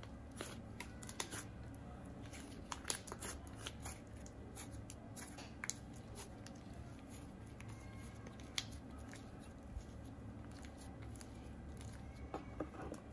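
Pink icing-and-jelly hybrid slime being kneaded, folded and stretched by hand, giving off faint, scattered crackles and pops: the "sizzly" sound of a well-set icing slime.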